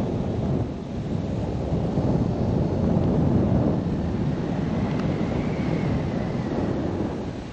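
Airflow from a paraglider in flight rushing and buffeting over the microphone in a steady, heavy wind noise. A faint whistle rises and falls about halfway through.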